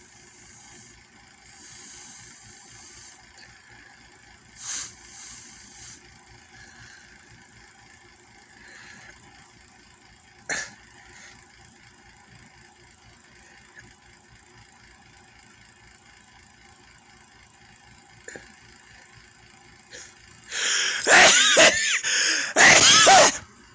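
Faint background with an occasional click for most of the time, then near the end a man's loud, exaggerated comic sneeze: a few drawn-out voiced breaths building up and ending in the sneeze itself.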